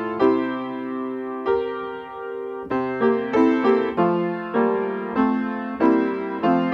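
Piano playing a slow piece: a couple of long held chords, then notes struck about three a second, each fading as it rings.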